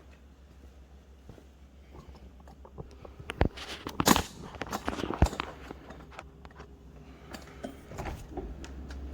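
Several sharp knocks and some clatter from handling the refrigerator, about three to five seconds in, over a steady low hum.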